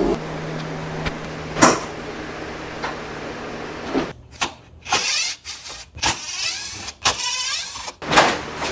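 Air suspension airing up: a steady electric compressor hum for about four seconds, then short choppy stretches of hissing air, with a few sharp knocks, the loudest near the end.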